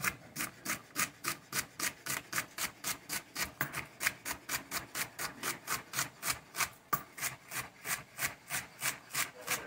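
Chef's knife chopping celery into small dice on a plastic cutting board, in quick, even strokes about four a second.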